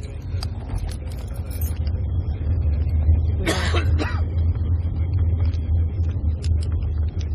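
Steady low rumble of a moving car heard from inside the cabin, with scattered light knocks. A person coughs briefly about three and a half seconds in.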